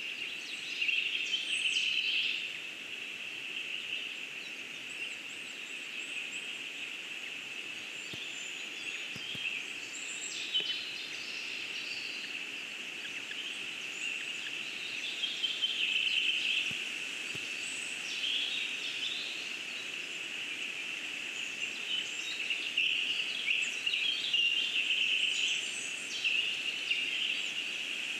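Forest songbirds calling and singing on all sides: a steady mix of high chirps and trills, with louder phrases several times.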